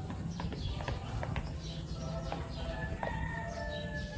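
Metal spoon clicking against a plastic bowl as it stirs thick shaving cream, over a steady low background rumble with birds chirping.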